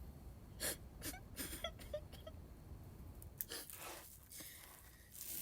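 Faint gasping breaths and whimpers from a person, a series of short breaths spread across several seconds.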